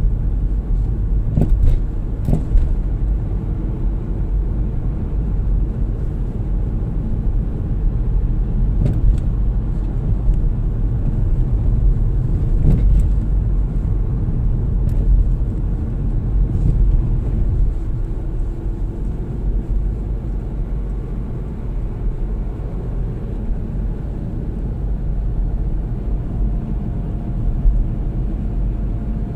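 Car driving along a road, heard from inside the cabin: a steady low rumble of engine and tyre noise, with a few sharp clicks now and then.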